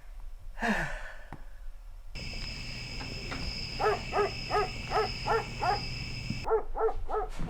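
A dog barking in quick runs of short barks, about three a second, a brief pause, then three more near the end, over a steady high-pitched whine.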